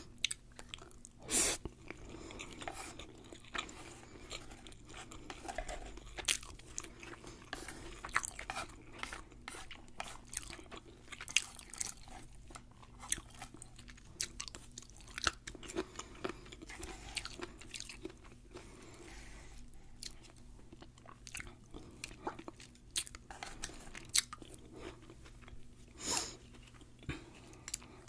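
Chewing of a deep-fried, tempura-battered sushi roll: crisp crunching of the fried coating mixed with softer chewing, many small crunches throughout, with louder crunches about a second in and near the end.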